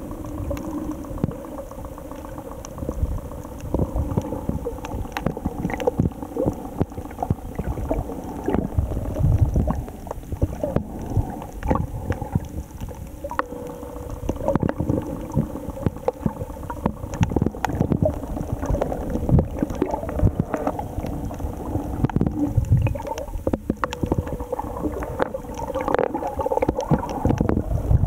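Underwater sound picked up by a snorkeler's camera: muffled gurgling and sloshing of water with scattered bubble clicks, over a steady low hum.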